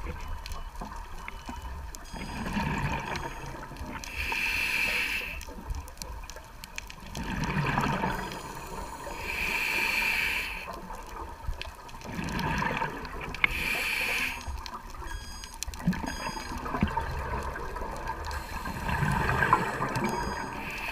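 Scuba diver breathing through a regulator underwater: a hiss on each inhale and a rush of bubbles on each exhale, about one breath every four to five seconds.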